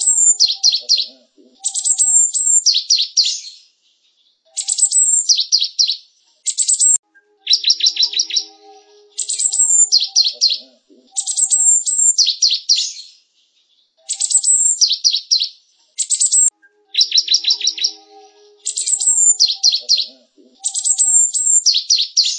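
Java sparrow song: bursts of rapid, dry clicking notes run into short high whistles, phrase after phrase with brief pauses between. The same sequence repeats about every nine and a half seconds, as a looped recording.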